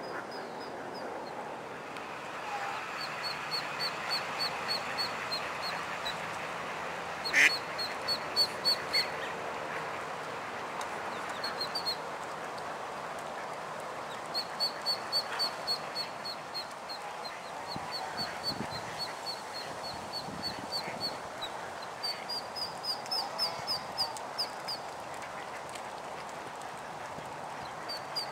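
Mallard ducks calling: runs of quick, high-pitched duckling peeps recur throughout, with one louder, sharper call about seven seconds in.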